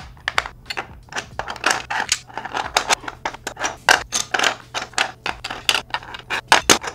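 3D-printed plastic puzzle pieces clicking and knocking against each other and their plastic tray as they are picked up, slid and set down, several irregular clicks a second with short scrapes between them.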